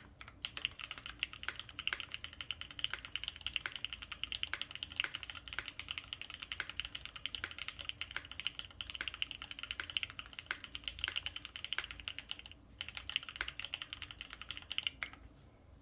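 Fast, continuous typing on a Frog mini WK custom mechanical keyboard with Cherry MX switches mounted on a polycarbonate plate, with no case foam, giving dense key clacks. There is a short pause about three-quarters of the way in, and the typing stops just before the end.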